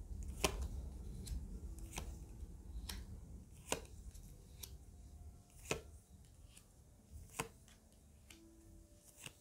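Tarot cards being drawn from the deck and laid down on a cloth-covered table: a string of short, sharp card clicks and taps, irregularly spaced about one to two seconds apart.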